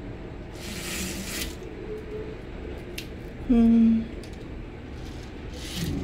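A fabric roman blind being raised by hand, rustling and scraping, with a click about three seconds in. Just after the click comes a short, loud, steady low tone lasting about half a second, the loudest sound here.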